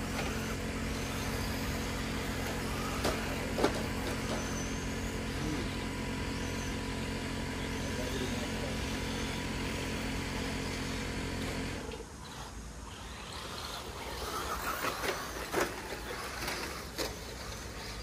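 A steady low mechanical hum at a fixed pitch, like a motor running, that cuts off suddenly about twelve seconds in. A few sharp clicks and scuffs follow.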